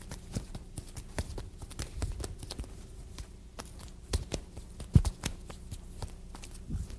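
Quick, irregular slaps and taps of forearms and hands meeting in a Wing Chun lap sau drill, with louder thumps about four and five seconds in. A faint steady hum runs underneath.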